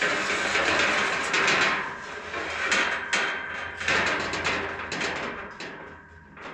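Irregular knocks and clatter over a rushing noise that fades after about four seconds, typical of hands-on work on the metal carport frame.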